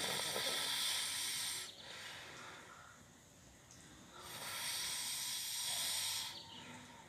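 A sleeping person snoring: two long, hissing breaths, each about two seconds, roughly four seconds apart, with quieter breathing between.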